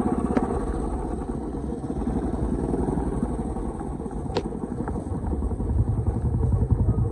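Royal Enfield motorcycle engine running on the move with a rapid, even firing pulse. The engine note grows louder and deeper about six seconds in.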